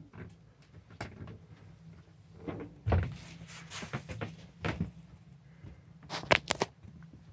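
Irregular knocks and thuds of footsteps on the wooden boards of an attic, a few single ones and a quick cluster near the end, over a steady low hum.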